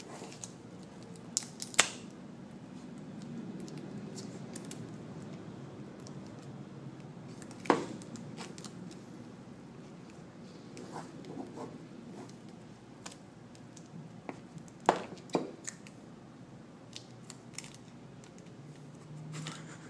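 Hands working a suction cup and small tools on a cracked iPhone 5 screen to lift it from the frame: low handling noise with a handful of sharp clicks and snaps.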